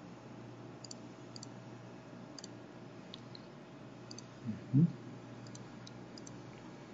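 Soft computer mouse clicks, a handful spread irregularly over several seconds. About halfway through there is a brief, louder, low rising sound.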